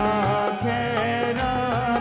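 Devotional bhajan music between sung lines: a melody with bending notes over a steady drone, with hand-drum strokes that slide down in pitch and bright, regular metallic hits.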